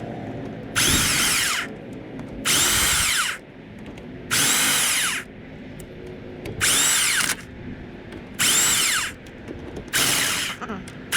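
Power drill/driver running in six short bursts of under a second each, about two seconds apart, each with a whine that falls away as the motor spins down. Typical of running in the clutch spring bolts one after another.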